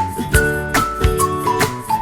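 Background music with a steady beat and a bright, stepping melody line over sustained chords.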